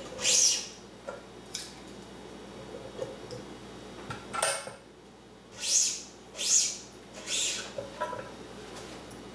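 Badminton string being pulled by hand through the racket's strings and grommets while a cross is woven, making about five short, high swishes, the first right at the start and four close together in the second half.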